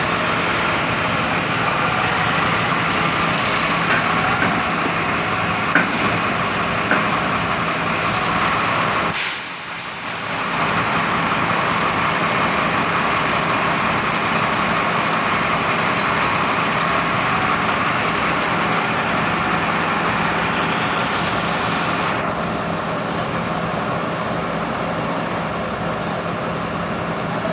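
Schwing truck-mounted concrete pump running steadily, its truck engine and hydraulics working as the boom unfolds, with a few light knocks. A sharp hiss of air lasts about a second, about nine seconds in, and the higher part of the noise eases off near the end.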